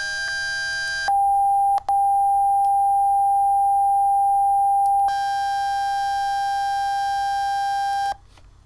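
Steady synthesized 797 Hz tone from the Sound Art iOS app, playing a hand-drawn waveform. It is buzzy at first and turns nearly pure about a second in as the wave is redrawn, drops out briefly, and turns buzzy again about five seconds in. It cuts off just after eight seconds when Stop is pressed.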